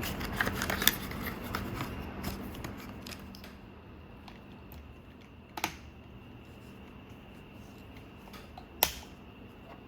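Small plastic clicks as a smokestack part is handled and fitted onto a Robosen Optimus Prime robot figure, busiest in the first few seconds, then two sharper snaps about three seconds apart. A faint steady hum lies underneath.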